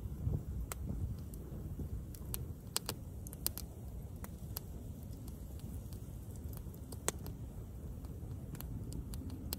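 Campfire wood crackling: sharp, irregular pops and snaps over a steady low rumble.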